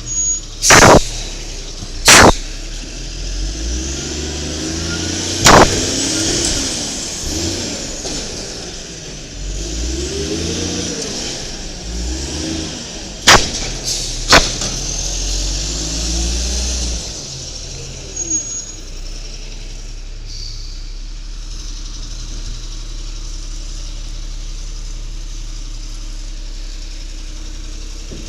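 Garbage truck's Cummins L10G natural-gas engine revving up and down, with several sharp, loud bangs in the first half. From about 18 seconds in it settles to a steady idle.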